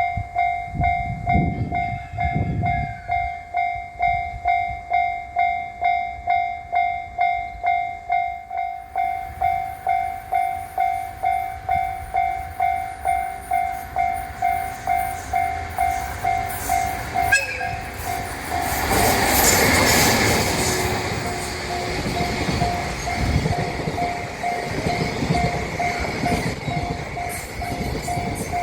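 Japanese level-crossing warning bell ringing steadily, a single ding about twice a second. About 18 seconds in a train passes over the crossing with a rush of wheel and rail noise that then settles into a rumble, while the bell keeps ringing.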